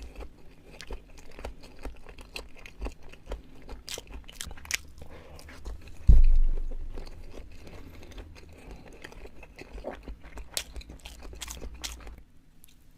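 A person chewing sushi close to the microphone: many short, sharp mouth clicks throughout. About six seconds in, a single heavy, deep thump that fades over about a second is the loudest sound.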